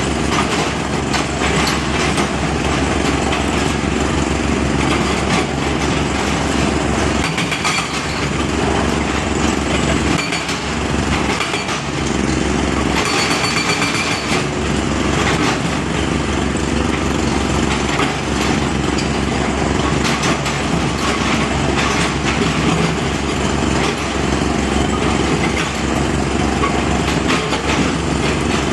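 Engine of a heavy earthmoving machine running steadily, with a constant low hum and brief dips in the low end around 7 to 14 seconds in.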